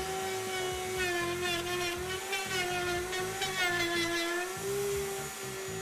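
Router mounted in a router table, running with a high steady whine, its bearing-guided compression pattern bit cutting along the edge of a workpiece. From about a second in until past four seconds the motor's pitch sags under the cut while the bit cuts, and the whine rises back to speed near the end.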